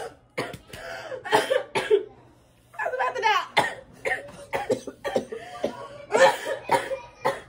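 People laughing and coughing in short bursts, with snatches of unclear talk.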